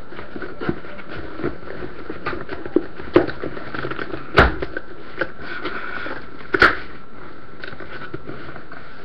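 Cardboard box being pulled open by hand: scattered crackles and rustles of cardboard and paper, with two sharper knocks about four and a half and six and a half seconds in. A faint steady high whine sits underneath.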